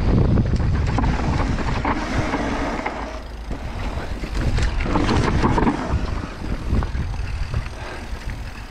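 Mountain bike descending a dirt trail at speed: wind buffeting the microphone, tyres rumbling over the dirt and the bike knocking and rattling over bumps. The noise eases somewhat in the second half.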